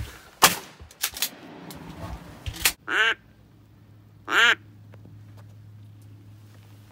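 A few sharp knocks in the first three seconds, then two short, loud duck quacks about a second and a half apart, with a faint steady low hum underneath after them.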